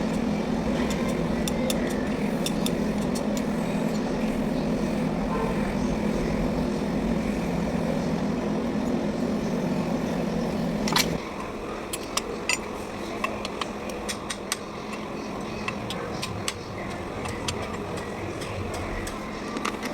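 A tractor engine runs at a steady idle, then cuts off about eleven seconds in. Scattered light metallic clinks and taps continue throughout.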